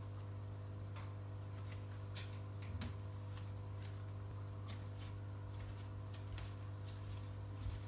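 Electromagnetic aquarium air pump humming steadily, feeding an airstone, with faint irregular ticks and pops of its fine bubbles breaking at the water's surface.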